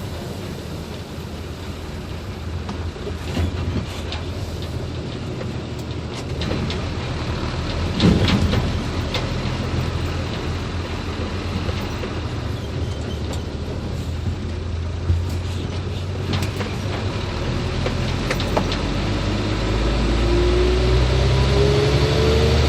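Hino 500 truck's diesel engine running while driving, with scattered knocks and rattles, the loudest about eight seconds in. Near the end the engine note rises.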